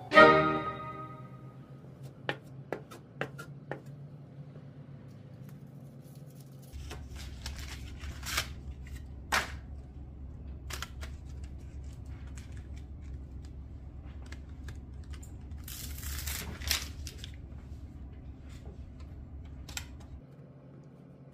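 Handling a self-adhesive fiberglass mesh drywall patch: a few light clicks, then scattered rustling and rasping of the patch and its paper backing as it is peeled and pressed onto the drywall, loudest about sixteen seconds in. A low steady hum runs underneath from about seven seconds in until near the end.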